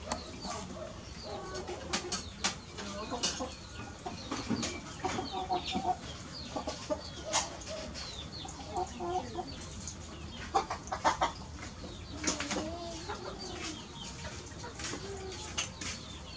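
A cat eating rice from a plastic tray: irregular sharp clicks and crunches of chewing and the tray, loudest about two-thirds of the way in, with short clucking bird-like calls in the background.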